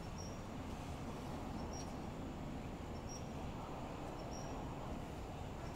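Steady low background noise with a short, high chirp repeating about every second and a half.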